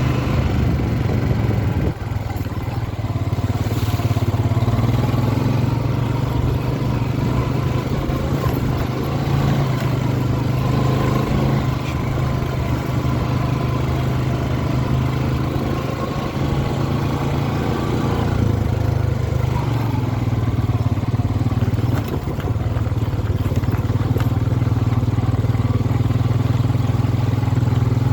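ATV engine running steadily under way, with a couple of brief dips in level.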